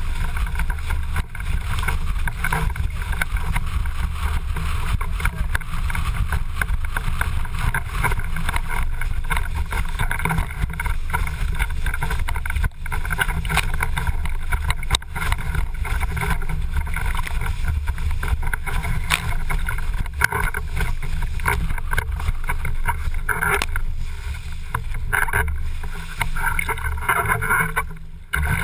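Windsurf board sailing at speed, heard from an action camera on the boom: a steady loud rush of wind and water with a low rumble, dipping briefly near the end.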